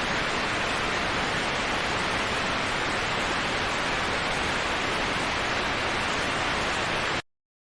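Waterfall in a tropical forest, a steady rush of falling water that cuts off suddenly near the end.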